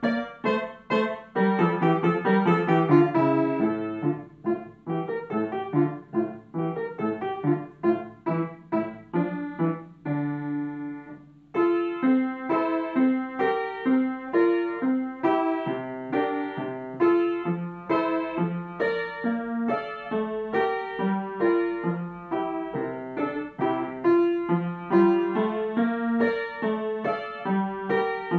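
Upright piano played solo: quick runs of notes, then a held chord that dies away about ten seconds in, and a new passage in a steady, even rhythm.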